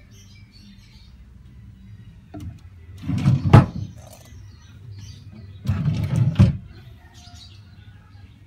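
A teak cabinet drawer on metal runners slides shut and ends in a sharp knock about three and a half seconds in. About six seconds in it is pulled open again, ending in a second knock.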